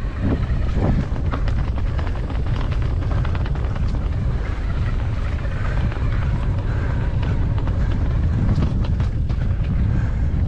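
Wind buffeting the microphone in a steady low rumble, with frequent small rattles and clicks throughout, as from a bike riding over a rough trail.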